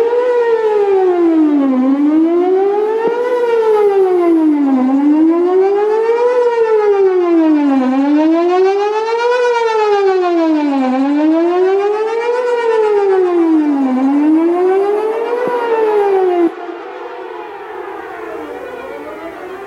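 Whelen WPS 4008 electronic outdoor warning siren sounding a wail during a test, its pitch rising and falling in a steady zigzag about once every three seconds. The uploader believes only about two of its speaker drivers still work. About sixteen seconds in, the loud tone cuts off suddenly, leaving a fainter sweeping tone.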